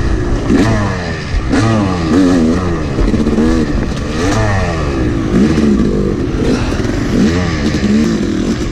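Two-stroke Yamaha YZ250 dirt bike engine heard from the bike itself, revving up and dropping back again and again, about once a second, as the rider works the throttle and gears. A clattering rattle runs underneath.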